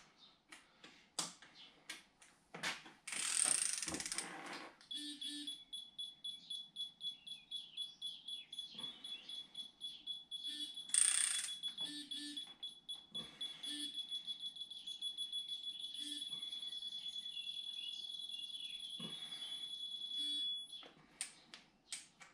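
An electronic beeper sounds one continuous high-pitched buzzing tone for about sixteen seconds. It starts about five seconds in and stops suddenly near the end. Before it and under it are light clicks and knocks of tool handling, with a short hiss a few seconds in.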